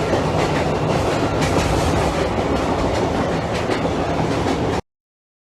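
Budd RDC rail diesel car train running at speed, a steady rumble with wheels clicking over rail joints; the sound cuts off suddenly near the end.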